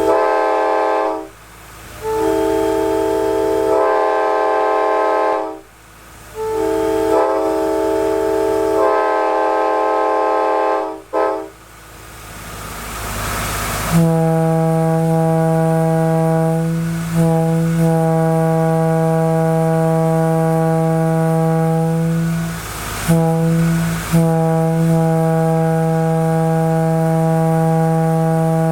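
Locomotive multi-chime air horns blown on display. One horn sounds a chord in several blasts, some notes bending in pitch as they start. About halfway, a deeper horn with a strong low note takes over in long blasts, broken twice briefly near the end.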